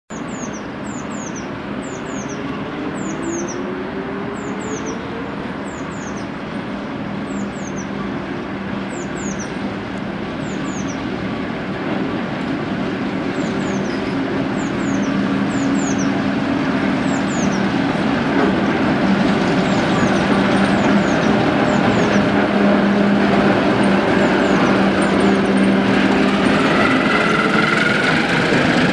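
Class 08 diesel shunter's English Electric six-cylinder diesel engine running as the locomotive moves along the line. Its steady low drone grows louder as it approaches, and a rising whine comes in near the end as it passes close.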